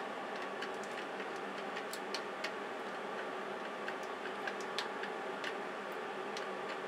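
A screwdriver slowly tightening a worm-drive hose clamp on aluminium flex ducting around an inline fan's collar. The clamp's screw and band give small, irregular clicks, roughly one or two a second, over a steady background hum.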